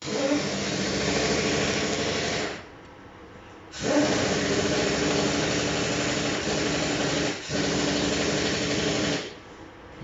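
Electric power-tool motor running steadily at high speed in two runs. It starts at once, winds down after about two and a half seconds, starts again about a second later with a short dip midway, and stops near the end.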